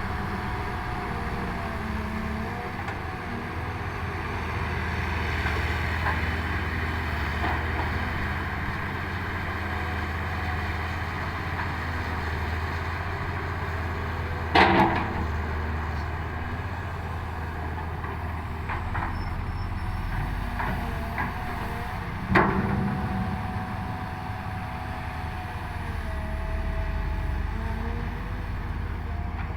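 Excavator diesel engine running under working load, its drone rising and easing as the machine works, with a faint whine gliding up and down in pitch. Two sharp bangs stand out, about halfway through and again some eight seconds later.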